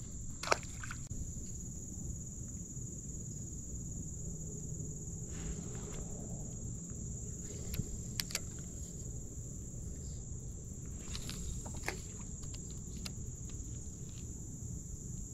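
Insects droning steadily at a constant high pitch over a low rumble, with a few sharp clicks scattered through from handling the spinning rod and reel.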